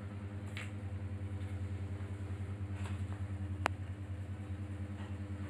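Steady low mechanical hum with a regular pulse, and a single sharp click about three and a half seconds in.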